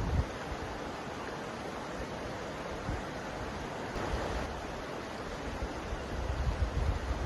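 Mountain river flowing: a steady rush of water, with low wind rumble on the microphone building near the end.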